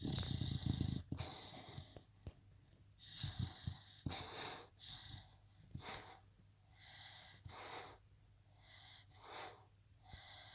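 Beagle snoring in its sleep while dreaming: a string of short, uneven breaths, about one a second. The first and loudest has a low rumble under it.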